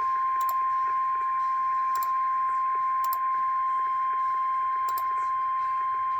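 National Weather Service 1050 Hz warning alarm tone, a single steady beep held without a break, which announces a severe thunderstorm warning. A few short clicks sound over it, at about half a second, two, three and five seconds in.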